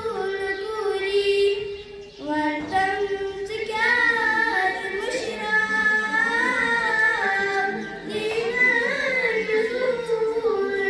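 A young girl singing solo into a microphone in long, wavering held notes, with a short break for breath about two seconds in.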